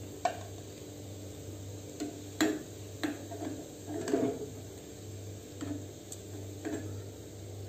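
Steel slotted spoon clinking against the iron kadhai as fried gulab jamuns are scooped out of hot oil: several light, separate clinks over a faint sizzle of frying oil and a low steady hum.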